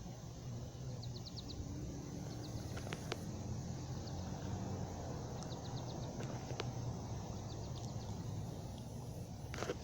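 Outdoor ambience: a low steady rumble like distant traffic, with faint groups of quick high chirps several times and a short brush of noise near the end. No tornado siren is sounding yet.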